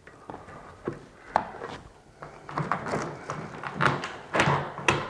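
Steel roller chains of a slide-out mechanism clinking and rattling as they are handled and set onto the motor gearbox's sprockets: an irregular run of sharp clicks and clatters with brief scrapes, busiest and loudest in the second half.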